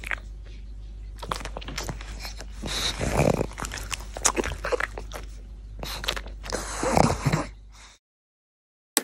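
A pug chewing a treat close to the microphone: many quick wet clicks and crunches from its mouth. The sound cuts off suddenly about eight seconds in.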